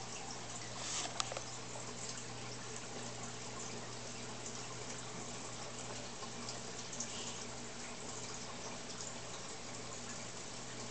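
Steady background hiss with a low hum underneath, and a faint click about a second in.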